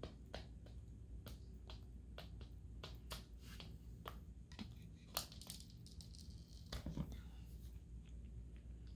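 A hen pecking at mealworms and feed on a hard wooden floor and in a plastic container: faint, irregular beak taps and clicks, several a second, with a couple of louder knocks about five and seven seconds in.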